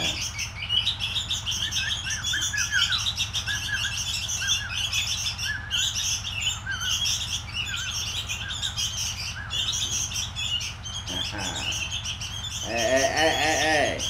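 Young sooty-headed bulbuls chirping non-stop in a dense chorus of high, rapid chirps while being hand-fed, with short repeated lower chirp notes among them. A louder, lower call is repeated near the end, and a steady low hum runs underneath.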